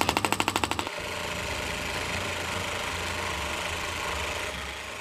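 Handheld percussive therapy device working on a patient's back: a rapid, even train of sharp taps for about the first second, then stopping, leaving a steady motor hum.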